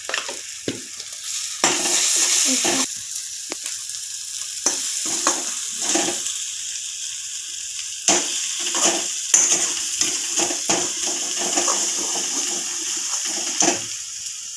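Onion-and-spice masala sizzling in oil in a kadhai, a steady hiss, while a slotted steel spoon stirs it and scrapes against the pan in repeated short strokes.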